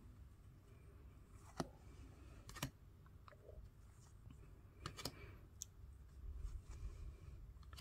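Topps Match Attax trading cards being shuffled through by hand one at a time: faint soft rustle with a handful of small sharp clicks as each card is slid off the stack.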